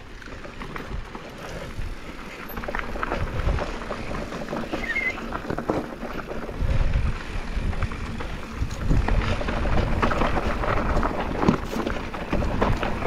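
Enduro mountain bike riding down a rocky trail: tyres crunching over stones, frame and parts rattling with many small knocks, and wind on the microphone. It grows louder about halfway through.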